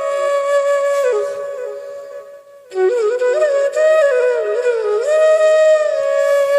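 Background music: a solo flute playing a slow melody of held, gliding notes, with a short pause about two seconds in.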